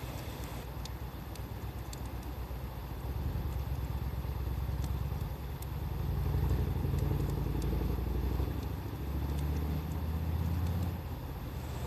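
A motor vehicle engine running nearby: a low, steady rumble that grows louder around the middle and shifts in pitch a few times. Faint scattered crackles of the campfire sound alongside it.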